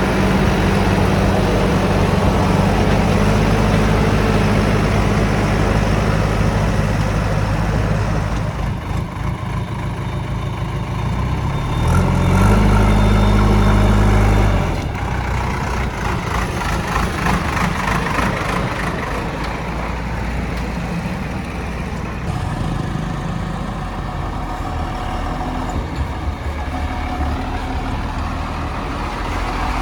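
Heavy diesel engine running steadily, then revving up about twelve seconds in, holding the higher, louder note for a couple of seconds before dropping back. After that its sound is more uneven.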